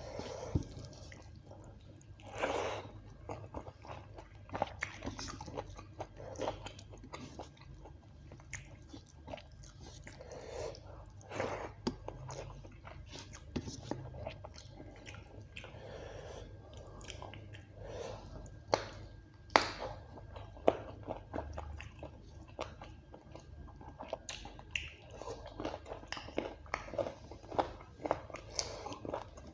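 A person chewing and biting mouthfuls of beef curry with rice, with many irregular sharp clicks and a few louder bites.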